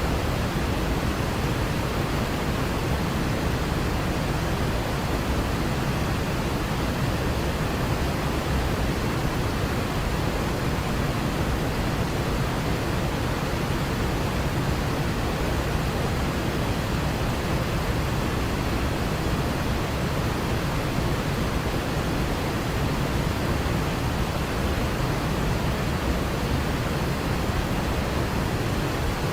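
Waterfall: water falling in a steady, unbroken rush that stays even throughout.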